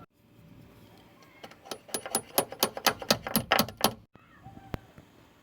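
A hammer driving the pin into a Jeep Cherokee XJ door check: a quick run of about twenty sharp metal taps, roughly seven a second, with one more tap near the end.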